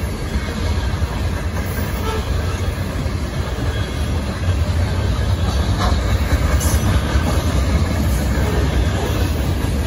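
Freight train cars rolling past at close range: a steady low rumble of steel wheels on the rails, with a few faint clicks, getting a little louder from about halfway.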